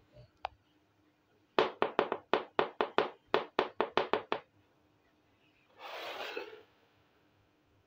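Small plastic miniature kitchen toy making a quick run of about fourteen sharp clicks, four or five a second, on a hard floor. A short scrape follows near the end as it is slid along the floor.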